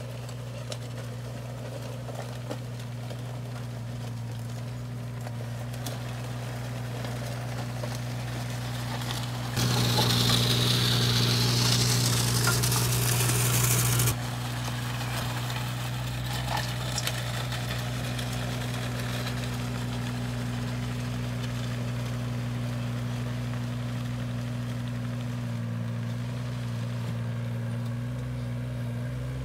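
A heavy machine's engine running steadily at constant speed. For about four seconds partway through, a much louder rushing hiss starts and stops abruptly over it.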